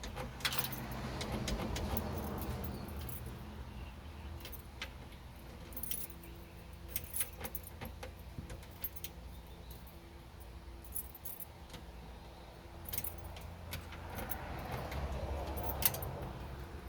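Keys jangling, with scattered small metallic clicks and taps, as an ignition key and lock cylinder are worked at a 1979 Ford F100's steering column. Longer rustling handling noise swells up near the start and again near the end.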